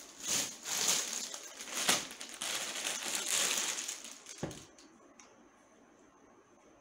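Clear plastic packaging crinkling and rustling as a folded suit in its bag is handled, a dense crackle that stops about two-thirds of the way through.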